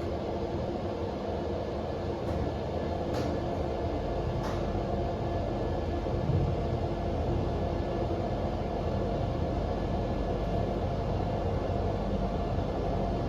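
Schindler marine traction elevator car riding: a steady low rumble and hum inside the moving cab, with a couple of sharp clicks about three and four and a half seconds in, after which the low rumble grows stronger.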